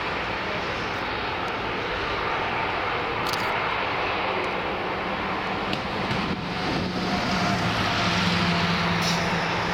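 Boeing 767-300ER freighter's twin jet engines running as it taxis onto the runway for takeoff: a steady rushing noise with a low drone, which grows a little louder in the last two or three seconds.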